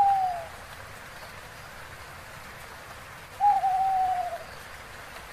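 An owl hooting twice: a long even hoot right at the start and a second, slightly wavering hoot about three and a half seconds in, each dropping a little in pitch at the end, over a faint steady hiss.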